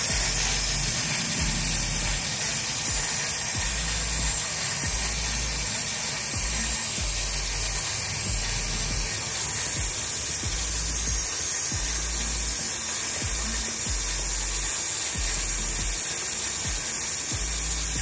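Aerosol chain lube hissing in one long, steady spray onto a motorcycle drive chain, with mechanical clicking as the chain and rear wheel are turned.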